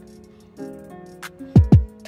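Background music: sustained chords over light ticking percussion, then two deep electronic kick-drum hits with a falling pitch near the end.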